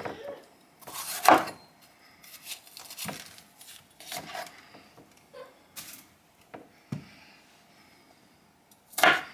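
Knife cutting up an apple and a pepper on a cutting board: scattered, irregular chops and taps about a second apart.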